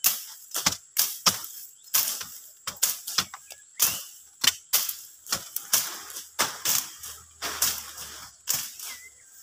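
Blade strokes slashing through roadside brush and grass, a quick irregular run of sharp cuts about two or three a second, some trailing into a rustle of leaves.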